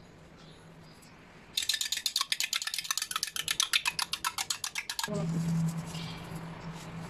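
Egg being beaten with a metal utensil in a small glass bowl: a fast, even run of metal-on-glass clinks for about three and a half seconds. The clinking stops suddenly and a low steady hum comes in.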